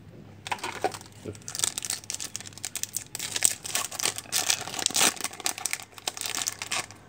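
Foil trading-card pack wrapper crinkling and being torn open by hand, a dense run of quick crackles.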